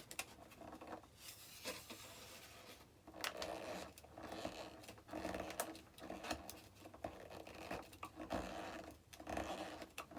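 A screw being turned in with a hand screwdriver, in irregular scratching, creaking turns as it drives into a tight-fitting hole.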